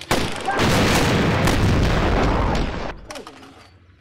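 A loud blast that starts suddenly, with a dense roar that holds for nearly three seconds and then dies away, as a staged shot or explosion fells a man in the fight.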